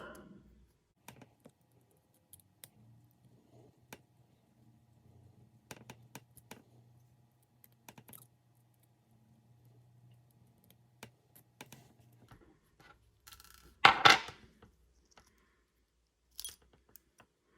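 Scattered small clicks and taps of a small driver and tiny screws as the motor plate screws are backed out of an Axial SCX24 crawler chassis. One louder short sound comes about three-quarters of the way through.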